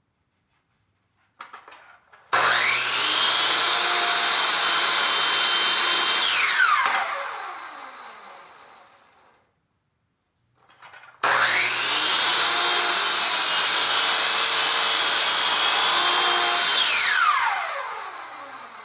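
A power saw cuts wooden cabinet-door rails to length, twice. Each time the motor starts with a quick rising whine, runs steady for about four seconds through the cut, then the blade winds down in a long falling whine.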